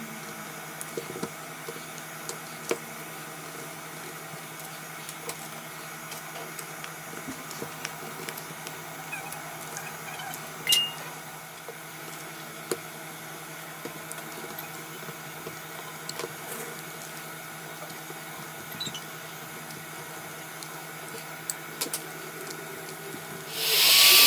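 Small tool clicks and light taps against a low steady hum, with one louder knock about halfway through. Just before the end, a heat gun switches on with a loud, steady blowing hiss and a thin whine from its fan.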